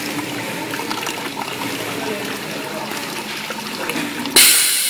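Liquid filling machine dispensing liquid into a container: a steady rush of pouring liquid, then a sudden louder hiss near the end.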